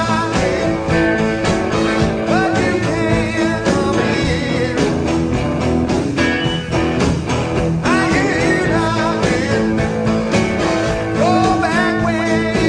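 Rock and roll record: electric guitar over bass and a steady drum beat, with the guitar sliding up in pitch a couple of times in the second half.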